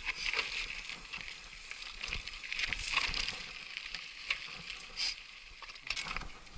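Trek Superfly mountain bike rolling over a rough dirt singletrack: tyre noise on loose dirt with irregular clicks and rattles as the bike jolts over bumps.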